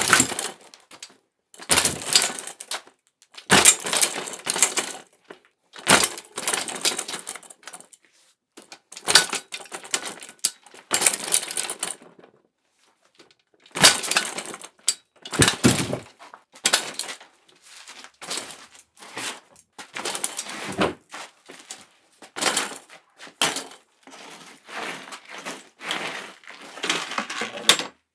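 Bicycle clattering to the ground again and again, each take a sudden metallic clank and rattle of the frame and parts lasting about a second, with short gaps between.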